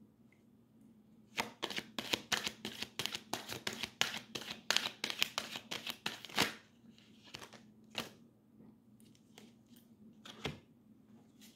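Tarot deck being shuffled by hand: a rapid run of card flicks and snaps lasting about five seconds, then a few single card taps.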